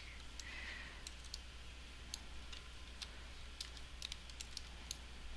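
Faint, irregular clicks of a computer mouse and keyboard, several a second at times, over a low steady hum.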